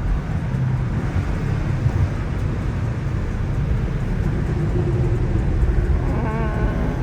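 BMW M5 Competition driving on a wet road in heavy rain: a steady low rumble of engine and tyre noise with road hiss, heard from inside the car.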